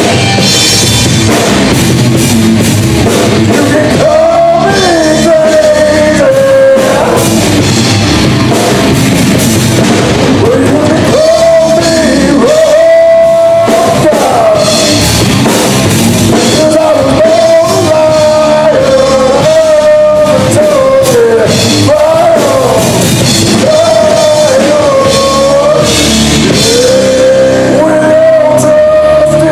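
A live rock band playing loud: electric guitars, bass and a drum kit, with a man singing into a microphone in long held phrases that come in about four seconds in.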